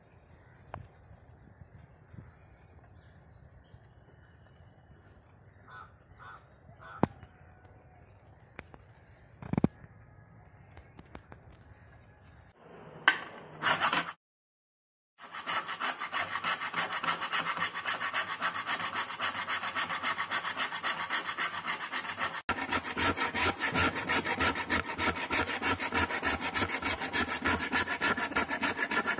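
A block of jaggery being rubbed back and forth on a small hand grater over a plate: fast, even scraping strokes that begin about halfway through after a brief silence, and get louder a little past two-thirds of the way in. Before that there is only a faint background with a few short chirps and clicks.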